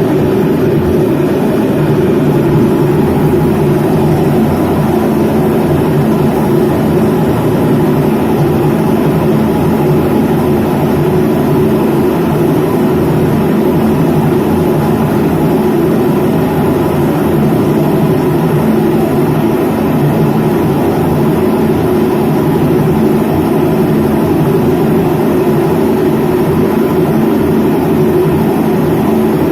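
Whirlpool White Magic F65 top-load washing machine running with a loud, steady mechanical drone from its motor and gearbox. The gearbox has let in water and is worn, and the technician says it must be replaced.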